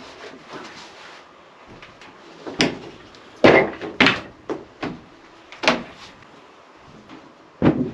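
Half a dozen separate knocks and thuds of wood, irregularly spaced. The loudest come about three and a half and four seconds in.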